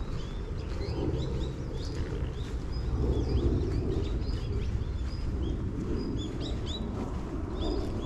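Many small birds chirping, with short high chirps overlapping one another throughout, over a steady low rumble.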